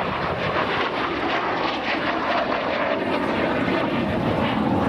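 MiG-15UTI jet trainer flying past, its single centrifugal-flow turbojet giving a steady rushing jet noise at a constant level.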